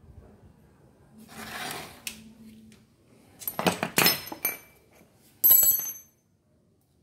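Hard metal objects clinking and clattering while handled: a cluster of sharp knocks, then one loud, ringing metallic clink.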